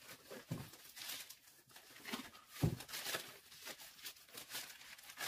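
Clear plastic wrap crinkling and rustling as a stack of paperback books is handled and shifted, with a soft thump from the books about two and a half seconds in.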